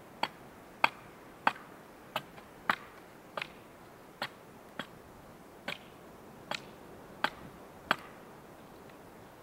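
An axe chopping into wood in about a dozen light, sharp strokes, a little under one a second, which stop about a second before the end.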